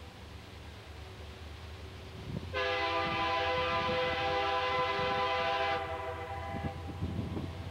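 Diesel freight locomotive horn sounding one long chord of several notes, starting about two and a half seconds in and lasting about three seconds. Under it runs the low rumble of the locomotives working under power.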